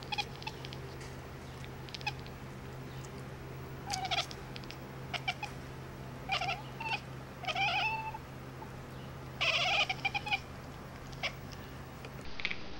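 Domestic cat making a series of short chirping calls, about six brief bursts from about four seconds in to about ten seconds, over a steady low hum.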